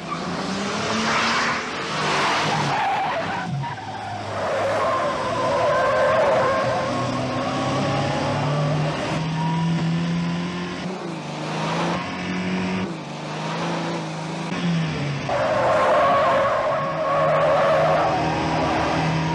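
Car engine revving hard, its pitch climbing and dropping with gear changes, with tyres squealing in long stretches through the turns.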